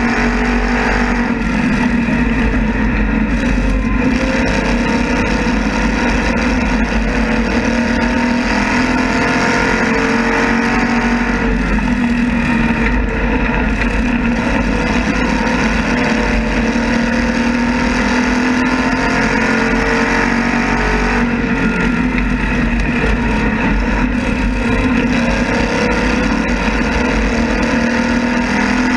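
Asphalt modified race car's engine running hard lap after lap, heard onboard. Its pitch sags and climbs again at intervals as the car goes through the corners, over a steady low rumble.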